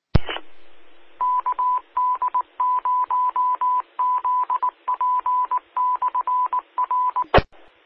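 Morse code identification from an amateur radio repeater: a single steady tone keyed on and off in short dots and longer dashes, heard over the repeater's hiss. A sharp click opens the transmission, and another comes near the end as the signal drops.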